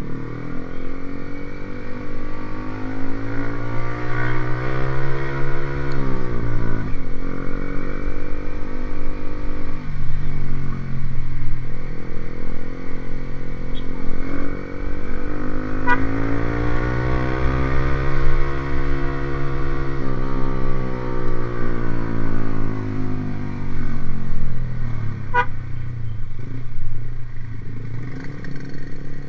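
Motorcycle with an aftermarket racing exhaust revving: the engine pitch climbs and falls back twice in long, smooth sweeps, the first dropping off sharply about six seconds in.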